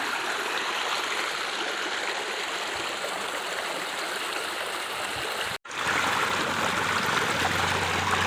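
Running water flowing steadily with an even rushing sound. It breaks off for an instant about five and a half seconds in, then carries on a little louder, with a low hum joining near the end.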